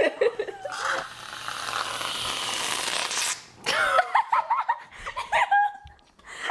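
People laughing and giggling, broken by a steady hiss lasting about two and a half seconds.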